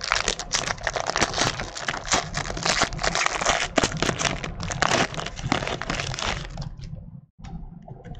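Trading card pack wrapper crinkling and tearing as it is opened: a dense crackle of plastic for about seven seconds that dies away near the end, followed by a few brief rustles.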